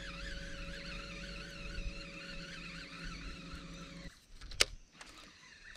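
A small electric motor hums steadily under a higher warbling tone, then cuts out about four seconds in, followed by a single sharp click.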